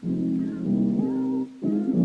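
Background music track: pitched notes in short phrases broken by brief pauses.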